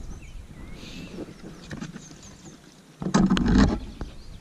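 Fishing gear being handled on the floor of a small boat: a few faint clicks and rustles, then a loud burst of knocking and rattling, about three seconds in, as a rod is picked up from among the net and tackle box.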